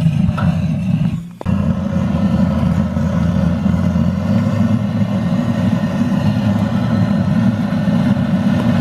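Handheld gas torch on a canister, burning with a steady roar as its flame is pushed into a wood stove's firebox to light the firewood. The sound drops out briefly about a second in, then carries on unchanged.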